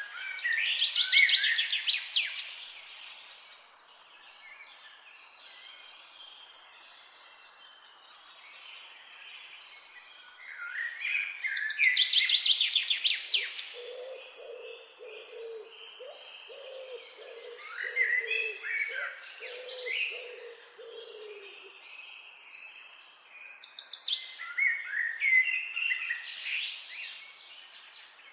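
Woodland birdsong. A common chaffinch sings three times: each phrase is a rapid run of high notes falling in pitch and ending in a flourish. Between the phrases, quieter warbling song from other birds, common blackbird among them, and a series of low, soft repeated notes in the middle.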